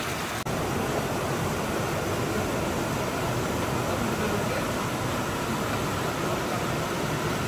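Mountain waterfall rushing steadily into its plunge pool.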